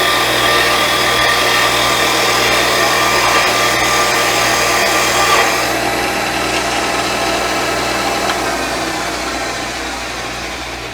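CNC wood lathe running while its cutter takes a test cut in spinning wood: a steady motor hum under a loud hiss of cutting. The hiss eases off about halfway through and the sound slowly dies down near the end.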